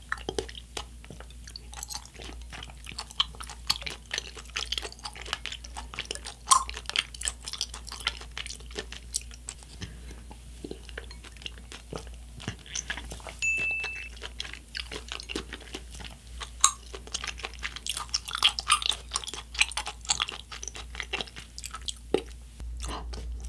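Close-up chewing and sipping: coconut milk bubble tea drawn up through a straw and its tapioca pearls chewed, heard as a dense, irregular run of small clicks.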